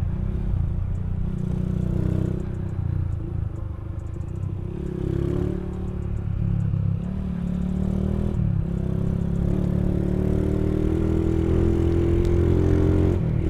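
Motorcycle engine running at road speed, heard from the bike itself. The engine note dips briefly about eight seconds in, then climbs steadily as the bike accelerates, with a short break near the end.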